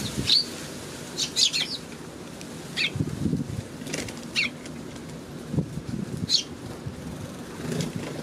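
Eurasian tree sparrows giving short chirps, with fluttering wingbeats as they fly in and land, over the steady hiss of rain.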